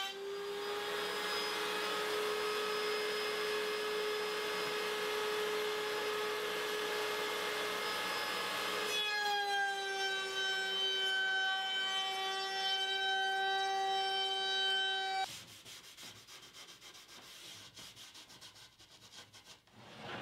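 Router in a router table running with a high, steady whine while it chamfers the edge of a glued-up maple panel: a rasping cut for about nine seconds, then the bit spinning free. The whine cuts off abruptly at about fifteen seconds, leaving only faint handling of the board.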